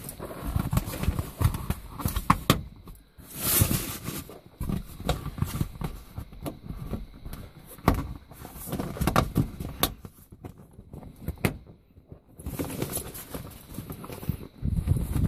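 Hands working on a convertible top's material: irregular clicks and taps of fasteners being snapped back into place, with rustling. There are two louder swishes, about four seconds in and again near the end.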